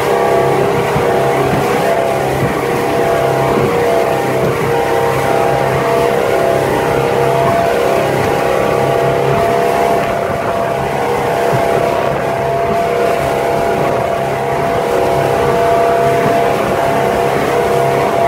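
Motorboat engine running steadily at speed, a constant drone with no change in pitch, over a steady rush of wind and water as the hull crosses choppy water.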